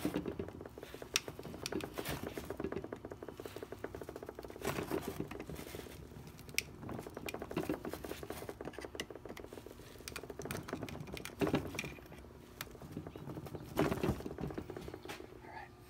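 Small flathead screwdriver scraping and clicking against the rubber seal boot and hub of a plastic pool-pump impeller as it pries the old shaft seal half out: an irregular run of scratches and light clicks, with a few sharper clicks scattered through.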